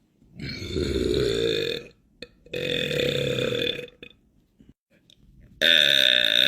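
A man belching: two long burps of about a second and a half each, one after the other. A third, louder burp starts about five and a half seconds in.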